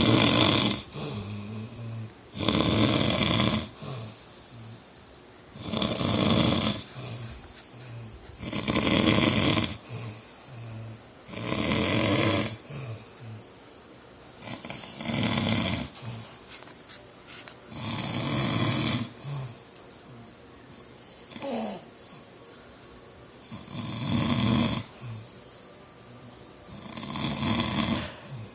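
A man snoring loudly in his sleep: a loud, rasping snore about every three seconds, with a quieter, lower breath sound between snores.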